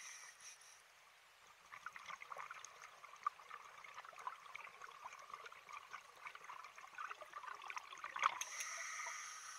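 Scuba diver's exhaled breath bubbling out of a regulator underwater: a gurgling, crackling rush of bubbles lasting several seconds, ending in a sharp tick, with a steady hiss at the start and near the end.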